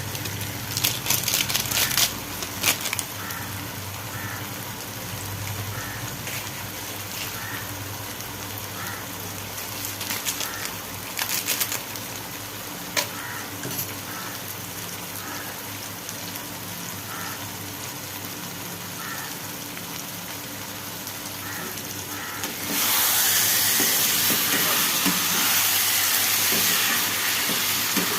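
Chicken masala frying and sizzling in a pan, with clicks and scrapes of stirring now and then. About 23 seconds in the sizzle turns suddenly louder and stays loud.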